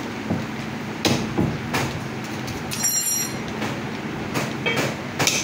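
A few sharp knocks of a meat cleaver and knife against a wooden chopping block as mutton is cut, over a steady background rumble. A brief high-pitched chirp sounds about midway.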